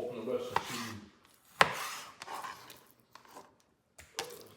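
Knife cutting raw chicken on a chopping board: one sharp knock of the blade on the board about a second and a half in, then a few lighter taps and slicing.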